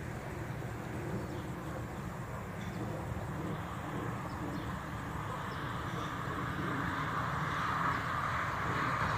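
Steady outdoor background noise with a low rumble, growing louder in the last few seconds.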